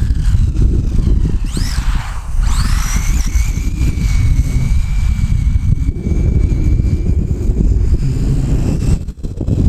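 Electric motor of a WLtoys A959-B RC buggy whining, climbing in pitch as it speeds up twice, about a second and a half and two and a half seconds in, then holding a steady high whine for several seconds. Wind buffets the microphone with a constant low rumble underneath.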